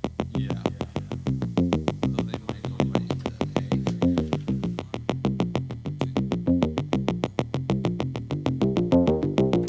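Background electronic music: a synthesizer playing a fast, even pulse of short repeated notes, about eight a second, over a shifting low melody.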